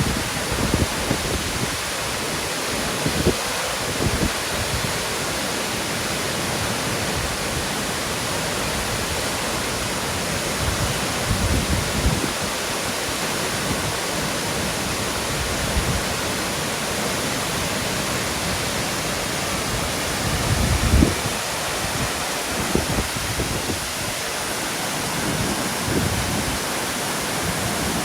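Waterfall: a steady, even rush of falling water, with occasional low rumbling swells.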